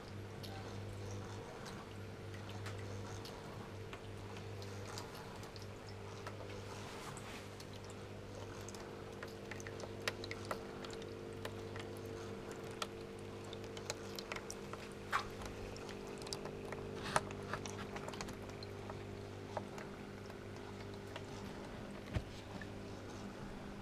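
Low, steady electrical hum from the motorised mechanisms of an electromechanical nativity scene, with scattered small clicks and ticks from about ten seconds in.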